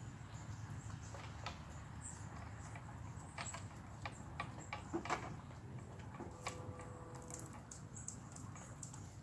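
Outdoor ambience: scattered light clicks and taps, loudest about five seconds in, over a low steady rumble, with a short held tone about six and a half seconds in.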